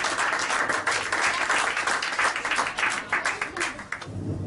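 Audience applauding, a dense round of clapping that thins out and dies away near the end.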